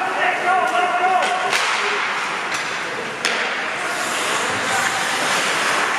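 Ice hockey in play: players shouting to each other early on, then a series of sharp clacks of sticks on the puck, the loudest about three seconds in, over a steady hiss.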